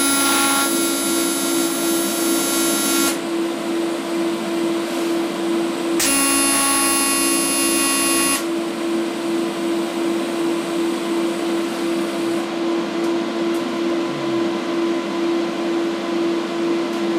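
TIG welding arc on stainless steel, struck twice: a buzzing with many high overtones for about three seconds from the start, then again for about two and a half seconds from about six seconds in, cutting off sharply each time. A steady, slightly pulsing hum runs underneath throughout.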